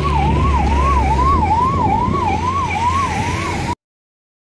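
Emergency vehicle siren wailing, its pitch sweeping up and down about twice a second over a low rumble of road traffic; it cuts off suddenly near the end.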